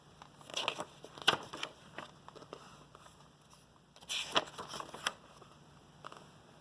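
Faint handling noises: short rustles and clicks in two brief clusters, the first about half a second in and the second about four seconds in.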